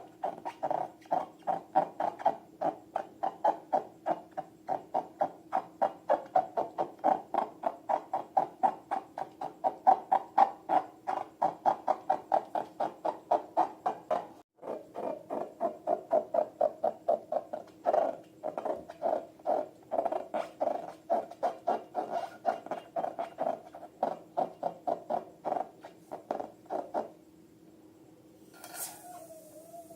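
Slime being squeezed and poked over and over, making sticky, wet clicks at about two to three a second over a steady low hum, with a brief break about halfway. The clicks stop near the end, followed by a short squeak that falls in pitch.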